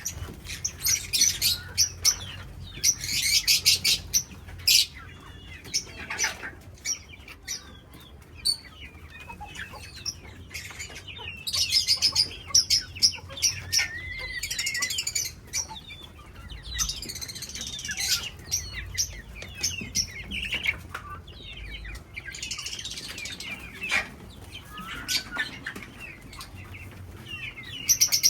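A colony of parrots calling: bursts of rapid, high-pitched chirps and squawks from several birds, overlapping and coming and going.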